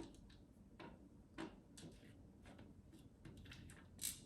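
Faint light clicks and taps, about seven of them at uneven intervals with a slightly louder one near the end, from small laptop screws being handled.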